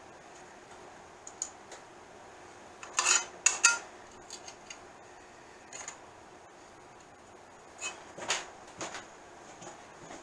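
Metal hand tools clicking and clinking on a steel machine table as screws on it are worked: a few scattered sharp taps, the loudest pair about three seconds in and another cluster near eight seconds, over a faint steady hum.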